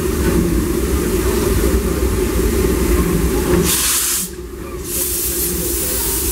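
Fred Gurley, an 1894 Baldwin steam locomotive, venting steam from its cylinder cocks in two loud hisses, the first a little past halfway and brief, the second lasting to the end, after a steady low rumble.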